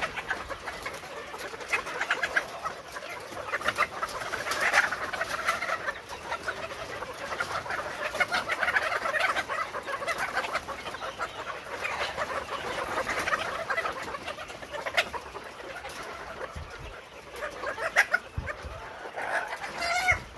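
A cage house full of Arab laying pullets clucking and calling together in a steady chatter. Many small clicks and taps are mixed into the calls throughout.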